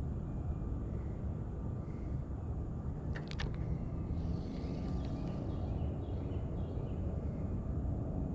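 Steady low outdoor rumble, with two sharp clicks about three seconds in and faint high chirps afterwards.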